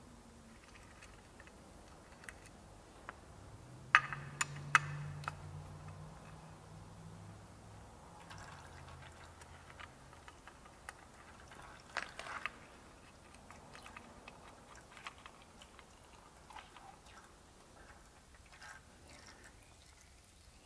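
Faint metallic clicks and taps of a T-handle hex wrench working loose the oil filter cover bolts on a Honda CRF250R engine, with engine oil trickling from the drain hole into a drain pan. A few sharper clicks come about four seconds in and again near twelve seconds.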